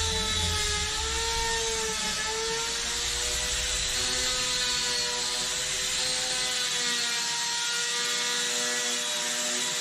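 Palm router running at high speed under a router table, a steady high whine with overtones whose pitch wavers and sags slightly as the bit cuts the edge of a plywood board fed across the table.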